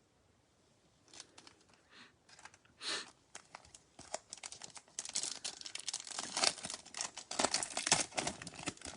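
Bowman Chrome trading-card pack being torn open, its foil wrapper crinkling. Scattered rustles start about a second in and grow into dense crinkling about halfway through.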